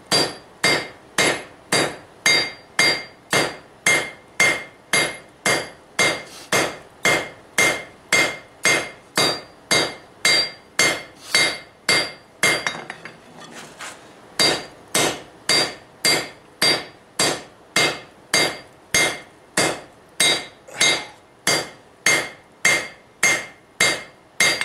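Blacksmith's 4-pound hand hammer striking red-hot steel on an anvil, about two blows a second with a metallic ring on each, spreading the froe blade wider. The hammering stops for about two seconds near the middle, then picks up again at the same pace.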